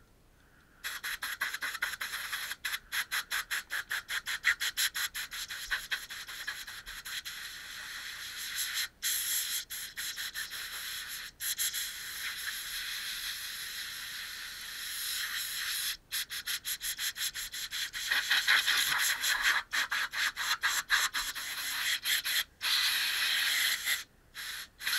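Aerosol spray-paint can hissing in many short passes, with brief breaks between strokes, as paint goes onto an outboard motor's top cowl.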